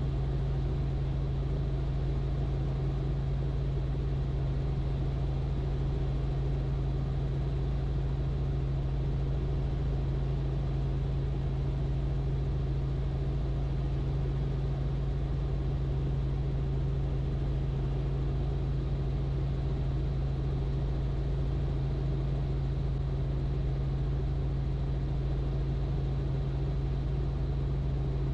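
Robinson R44 helicopter in cruise flight: a steady drone of engine and rotor with a strong low hum that does not change.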